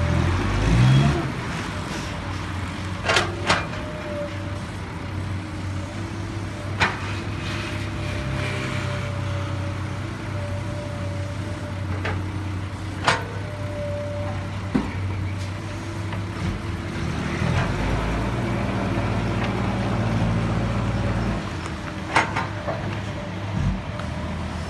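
Heavy diesel earthmoving machinery running steadily, with sharp metallic clanks now and then; the engine works harder for a few seconds in the second half.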